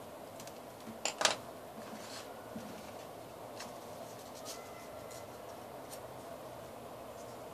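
Paper and thin cardboard being handled and folded: two sharp crackling snaps about a second in, then a few faint ticks and rustles over a steady background hiss.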